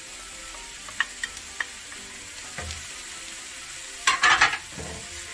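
Mixed vegetables (eggplant, onion, paprika, green onion) sizzling in a frying pan as they are stir-fried with a wooden spatula. A few light knocks of the spatula come about a second in, and a louder burst of scraping about four seconds in.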